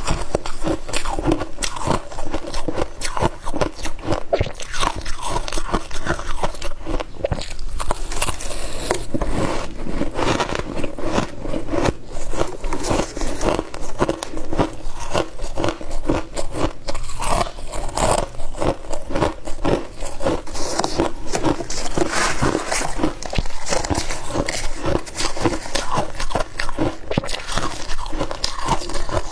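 Freezer frost being bitten and chewed close to the microphone: a dense, unbroken run of soft, rapid crunches.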